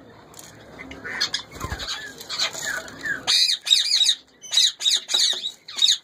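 Rustling and handling noise for about three seconds, then Indian ringneck parakeet squawking: loud, harsh screeches repeated in quick succession.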